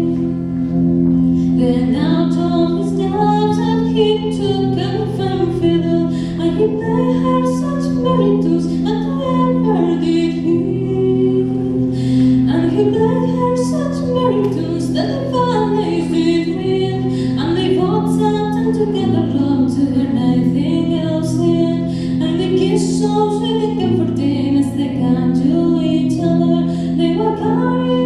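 A solo voice singing a slow song over long held accompaniment chords that change every few seconds.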